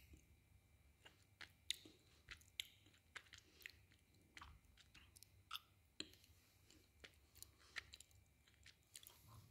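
Close-up chewing of hard, brittle nonfood pieces of the kind eaten for pica, with faint, sharp, irregular crunches about two a second.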